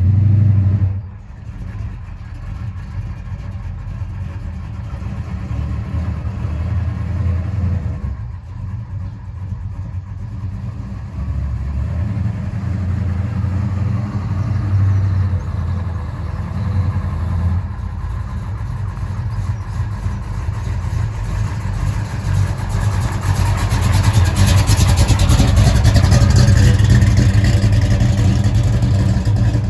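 1968 Dodge Coronet's 513 cubic inch big-block V8 rumbling as the car drives up the street, growing louder as it comes close in the last few seconds.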